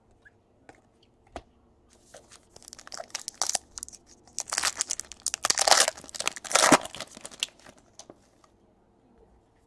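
Foil wrapper of a Bowman Chrome baseball card pack being torn open and crinkled. A few light clicks of cards being handled come first, then dense crinkling that is loudest in the middle and stops about eight seconds in.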